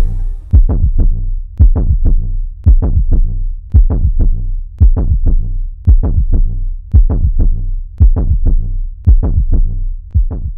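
Background electronic music built on a deep, heartbeat-like double thump about once a second, with short pitched notes ringing over each beat.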